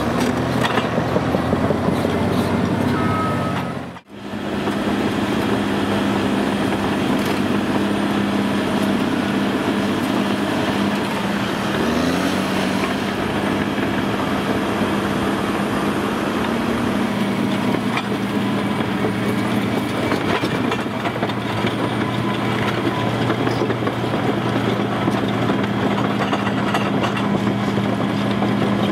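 Caterpillar D6R crawler dozer at work: its diesel engine running steadily under load, with the clatter of the steel tracks as it pushes and spreads crushed stone. The sound cuts out briefly about four seconds in.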